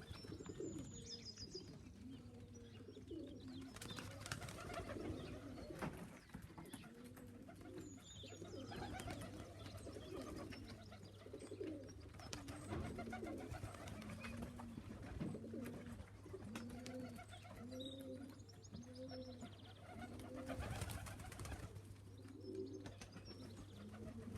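Homing pigeons cooing at the loft: a long run of short, low, rising-and-falling coos, faint, with a steady low hum underneath and a few faint high chirps.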